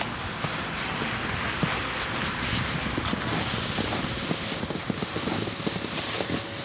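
Plastic saucer sled scraping over crusty snow as it is towed, a steady rushing scrape dotted with many small crunches and crackles.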